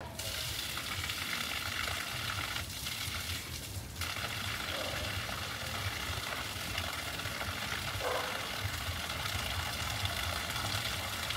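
Water gushing from the outlet pipe of a newly drilled borewell and splashing onto dirt and a concrete-block wall: a steady hiss, with a low hum underneath.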